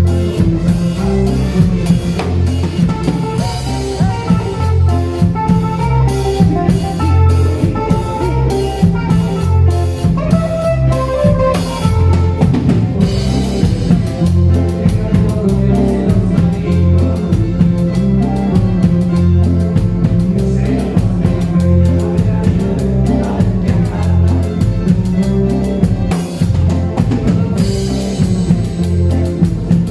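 A band playing live: a drum kit keeping a steady beat under an alternating bass line and a melodic lead.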